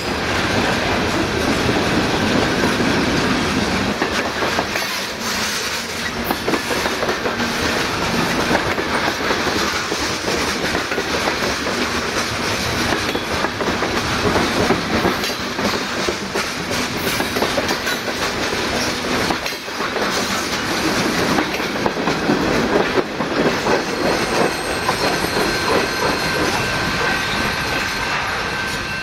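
Freight train of gondola cars rolling steadily past, wheels clacking over the rail joints, with a light wheel squeal.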